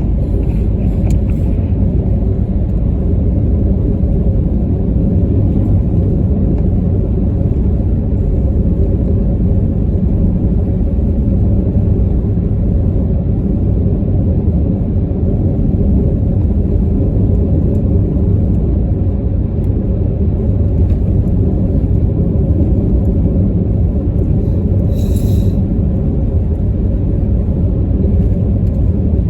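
Steady road and engine rumble of a moving car, heard from inside the cabin, with one brief sharper sound near the end.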